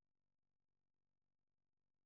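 Near silence: the audio track is essentially empty, with no audible sound.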